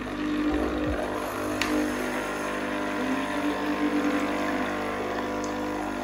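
Krups-made Nescafé Dolce Gusto capsule coffee machine running its water pump with a steady hum and pushing water out of the spout into a glass. This is a flush cycle during the machine's first setup.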